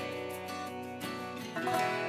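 Background music: sustained notes, with a new chord coming in about one and a half seconds in.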